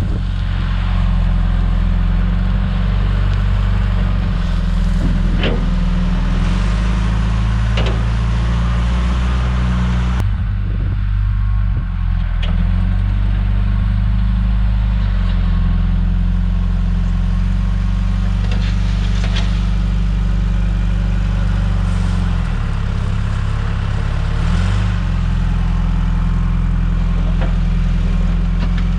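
John Deere 310G backhoe's diesel engine running steadily while grading, its pitch shifting several times as the load changes, with a few short knocks.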